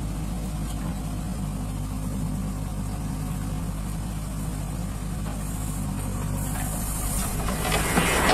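Diesel engine of a JCB 3DX backhoe loader running steadily as the loader digs and lifts a bucket of soil. Near the end a rising rush of noise comes in as the soil starts pouring from the bucket into a tractor trolley.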